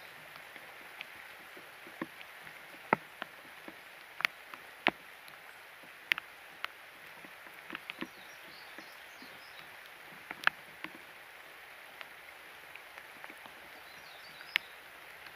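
Steady hiss of falling rain, with scattered sharp, irregular taps of raindrops striking close to the microphone.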